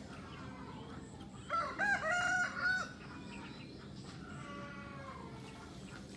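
A rooster crows once, about a second and a half in: one cock-a-doodle-doo of about a second and a half, made of a few arching notes.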